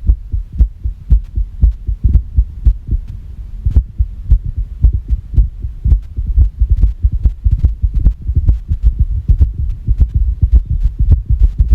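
Human heartbeat: fast low thumps at uneven spacing, the beats bunching and then leaving short gaps, an irregular rhythm (arrhythmia).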